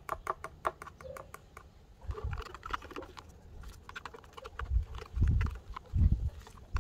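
A metal spoon stirring thick hair-colouring mask cream in a plastic tint bowl: quick clicks of the spoon against the bowl and wet squelches of the cream, with a few dull low thumps in the second half.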